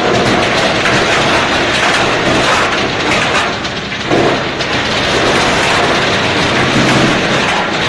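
Tree root shredder running loaded, grinding tree roots into wood chips: a loud, continuous grinding and rattling with a machine hum beneath it.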